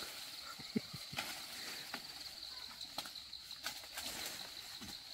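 Tree branches being cut for fodder: irregular sharp chops and cracks, roughly one a second, over a steady high-pitched drone.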